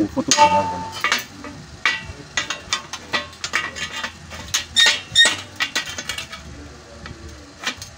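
Steel nuts, bolts and washers clinking and tapping against each other and the hard tabletop as they are picked up and a nut is run onto a bolt. The clinks come irregularly, with a louder cluster about five seconds in.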